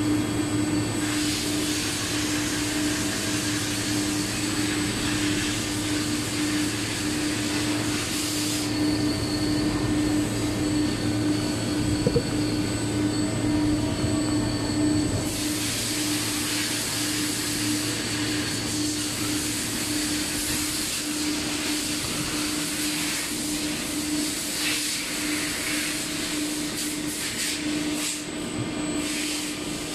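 Steady machinery hum: a constant mid-pitched drone over a lower one, with a higher hiss that swells and drops away in long stretches.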